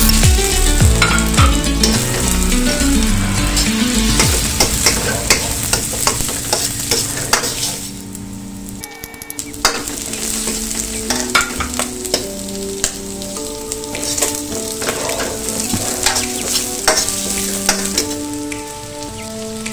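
Chopped onion, garlic and carrot slices sizzling in a hot wok while a metal ladle stirs them, scraping and clinking against the pan. The sizzle drops for a moment about eight seconds in, then picks up again.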